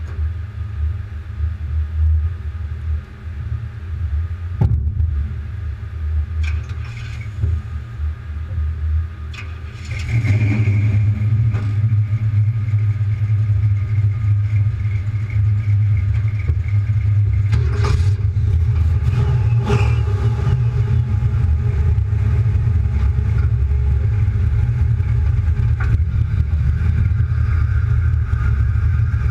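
Chevrolet Nova's engine idling, heard at its dual tailpipes: a steady low exhaust rumble that gets louder about ten seconds in and stays up, with a few short knocks along the way.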